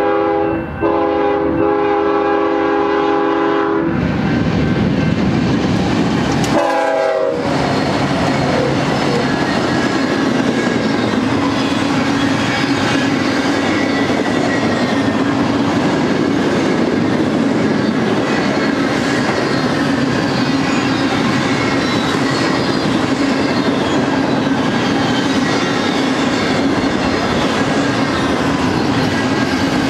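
BNSF freight locomotives' air horn sounding a chord for a level crossing, the last blast ending about four seconds in. The locomotives then pass, and a double-stack intermodal train's container cars roll by with the steady noise of steel wheels on rail.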